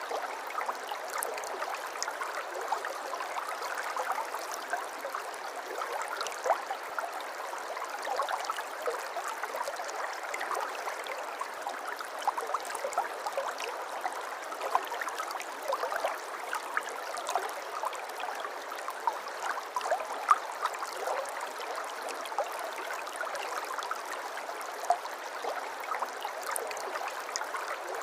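River water flowing steadily over stones: an even rush with many small, quick splashes.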